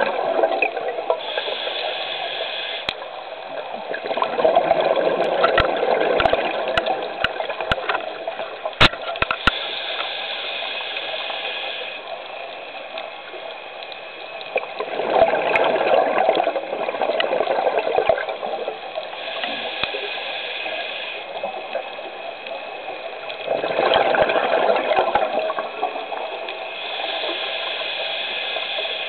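Scuba diver breathing through a regulator underwater: a hissing inhale, then a louder bubbling exhale, in slow cycles about nine seconds apart. A few sharp clicks come about nine seconds in.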